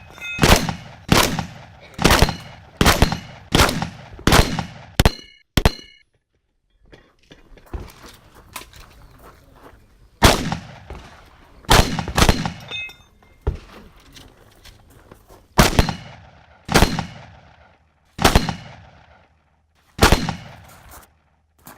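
A competition shotgun firing a string of about fifteen shots, roughly one a second for the first six seconds, then after a pause of about four seconds further shots one to two seconds apart. Struck steel targets ring briefly after several of the shots.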